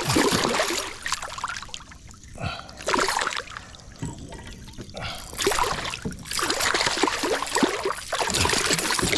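Water splashing and trickling in uneven bursts, with quieter moments about two and four seconds in.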